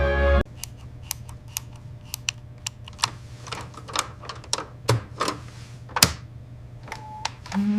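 Irregular light clicks and taps, a few a second at uneven spacing, over a steady low hum, after a music cue cuts off. A pitched tone comes in near the end.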